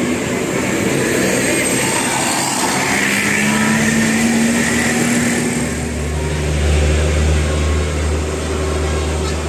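A large diesel bus engine passing close by in road traffic. Its low drone comes in strongly about six seconds in and holds steady.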